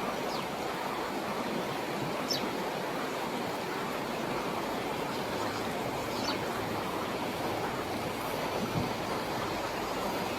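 A river's water rushing past with a steady, even noise.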